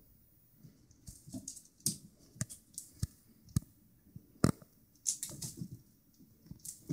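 A kitten scampering and pouncing on a hardwood floor after a feather wand toy: irregular light taps and clicks of paws and claws on the boards, with a few sharper knocks.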